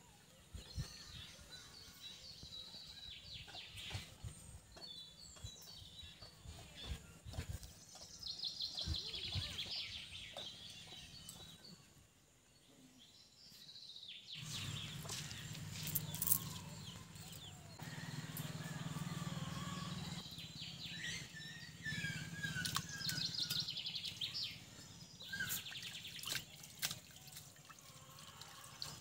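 Birds chirping and calling on and off, with scattered clicks and knocks. About halfway through, a low steady hum joins in.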